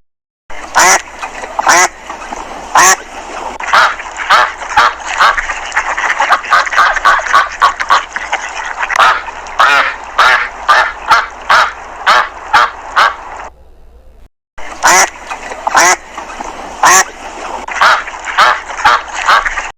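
Duck quacking over and over in short calls, with a fast run of quacks in the middle and a brief pause about two-thirds of the way through.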